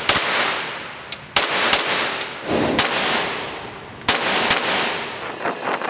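Gunshots at a shooting range: about six shots at uneven intervals over four and a half seconds, each with a long echoing tail.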